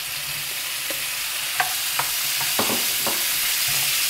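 Parboiled potato pieces sizzling as they fry in hot chorizo fat in a non-stick frying pan, the sizzle growing a little louder as more go in. A few short knocks and scrapes of a spatula against the bowl and pan come from about a second and a half in.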